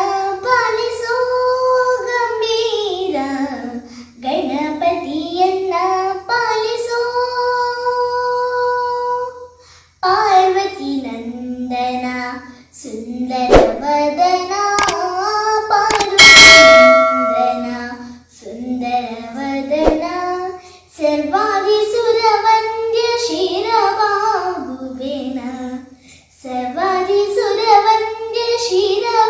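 A young girl singing a Kannada devotional song to Ganesha, in long melodic phrases with short breaths between. Between about thirteen and seventeen seconds in, a few sharp knocks and a brief, loud ringing clang cut across the singing.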